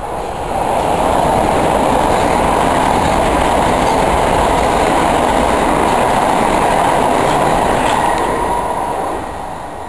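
Southern passenger multiple-unit train running through the station at speed close by, a loud rush of wheel and rail noise. It builds over the first second, holds, and dies away near the end as the train passes.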